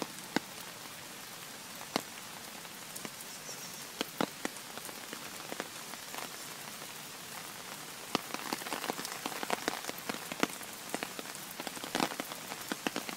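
Heavy rain falling steadily: an even hiss with scattered sharp taps of drops landing close by, which come thicker in the last third.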